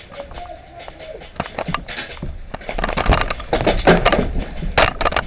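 Irregular crunching and rustling of footsteps and gear moving through dry leaf litter and twigs on a woodland floor, getting louder and quicker after the first second or so, with low rumble on the microphone.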